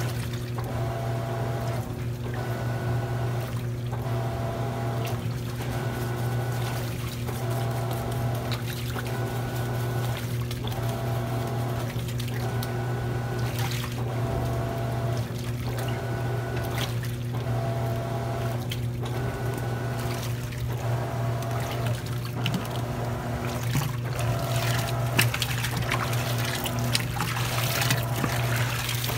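Water running and sloshing in a top-load washing machine tub, with a steady low hum under it. The splashing grows louder and busier over the last few seconds.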